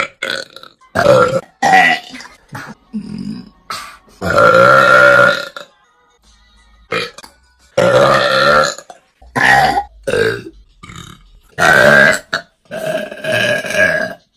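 A string of loud burps from young women, about a dozen in all: short ones, and several long drawn-out belches held for a second or more, the longest a little after four seconds in.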